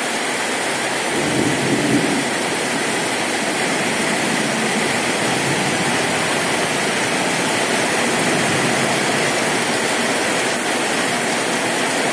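Heavy rain pouring down on a road and vegetation, a dense, steady hiss.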